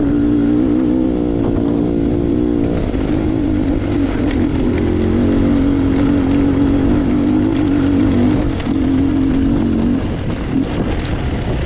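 Trail motorcycle engine running under load up a steep rocky climb, its note wavering with the throttle, then easing off about ten seconds in as the bike slows.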